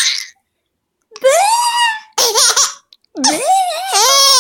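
A baby laughing in several high-pitched bursts with short gaps between them, the pitch rising and falling within each.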